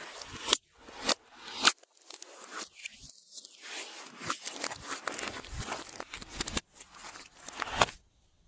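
Glossy slime being squished and stretched by hand: a run of crackling clicks with several sharp pops of trapped air bubbles, the crackling denser in the second half.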